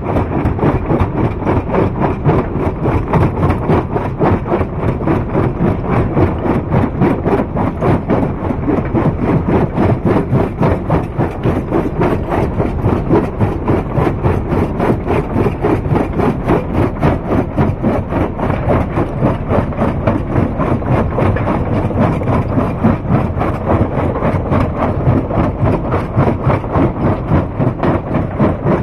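Heavy rock-crushing machinery running steadily, a loud continuous rumble with a fast, even pulsing.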